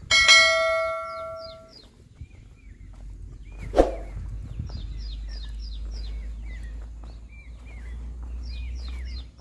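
A bell-like chime from a subscribe-button animation rings loudly at the start and fades over about a second and a half. Birds then chirp over and over in short falling calls, with a single knock about four seconds in and a low rumble underneath.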